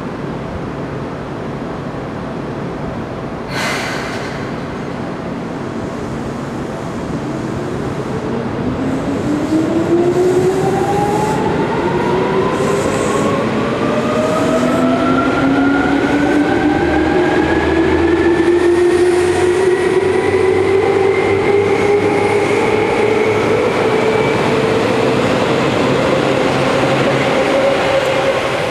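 Seibu 2000-series electric commuter train pulling away and accelerating past. Its traction motors whine in several tones that rise steadily in pitch over about fifteen seconds, over rail and wheel rumble that grows louder as the cars come by. A single sharp clack sounds a few seconds in.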